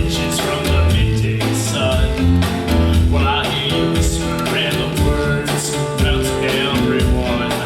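Rock-and-roll song with a steady drum beat and guitar playing through a live show's sound system.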